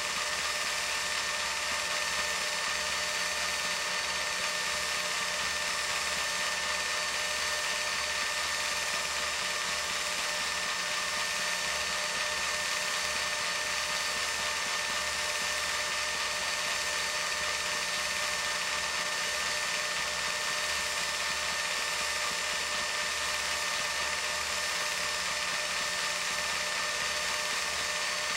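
Film projector running: a steady mechanical whir with a thin, constant high whine.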